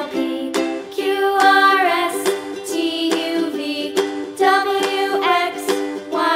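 Background music with a melody over a steady beat.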